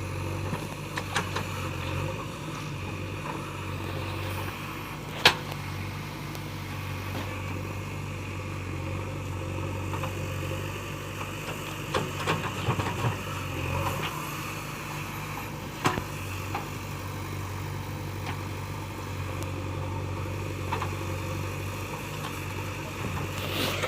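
Heavy diesel machinery engine running steadily at a low, even pitch, with a few sharp knocks: the loudest about five seconds in, a cluster around twelve to thirteen seconds, and another near sixteen seconds.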